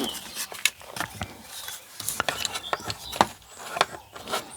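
Irregular light clicks and knocks of plastic parts being handled while the silicone air pipe is fitted back inside an opened blood pressure monitor.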